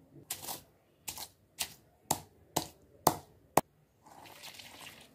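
Stone pestle pounding green chillies and rock salt in a stone mortar: seven knocks about half a second apart, then a softer grinding scrape of stone on stone near the end.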